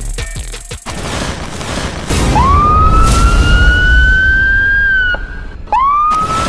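Intro sound effects: a long siren-like whistle that rises steadily over a deep rumble, then a second rising whistle starting shortly before the end.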